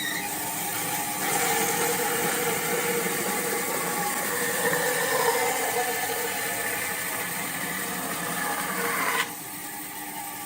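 A woodworking power tool running steadily with a hissing, noisy sound, dropping in level about nine seconds in.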